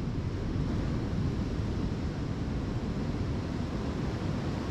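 Steady rumble of wind on the microphone over ocean surf.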